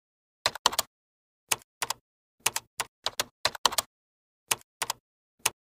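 Typing sound effect: a run of sharp key clicks, about eighteen of them, coming singly and in quick twos and threes, with dead silence between.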